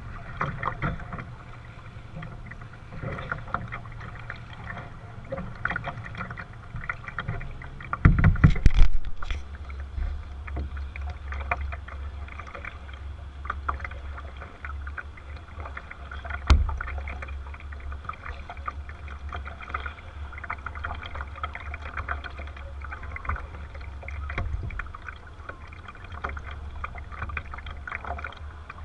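Kayak moving across choppy lake water: water splashing and lapping against the hull under a steady low rumble of wind on the microphone. A loud knock comes about eight seconds in, and a sharp click about halfway through.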